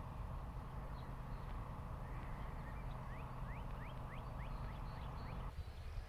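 A small songbird giving a run of quick rising chirps, several a second, about three to five seconds in, over a steady outdoor background hiss that cuts off shortly before the end.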